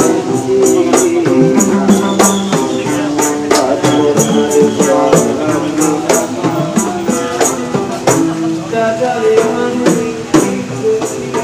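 Street musicians playing: a melody over a steady, sharp percussive beat.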